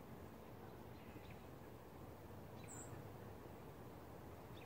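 Quiet woodland ambience: a steady low background hiss with a few short, faint bird chirps, one higher and clearer about two and a half seconds in.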